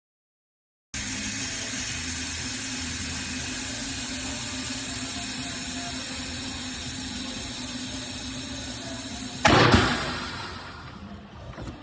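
Steady hiss of compressed air, then a sudden louder rush of air about nine and a half seconds in that dies away over a second or so.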